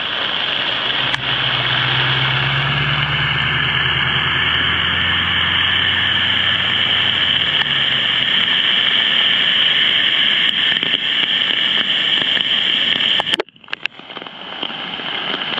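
Steady rush of heavy rain and running floodwater, with a pickup truck's engine rumbling past from about a second in until about eight seconds in. The sound briefly drops out near the end.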